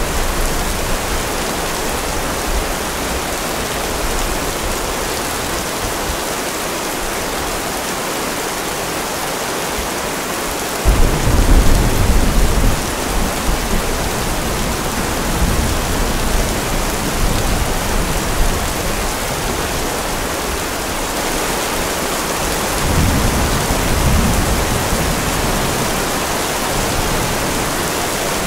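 Steady rain, with a loud rumble of thunder about eleven seconds in and a softer rumble around twenty-three seconds.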